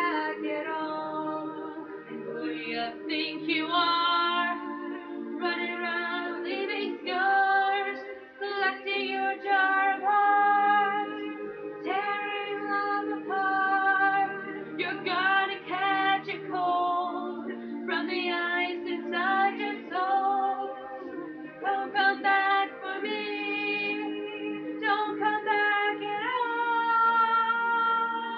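A young woman singing a song solo, her voice holding and bending notes, over a steady backing of low held chords.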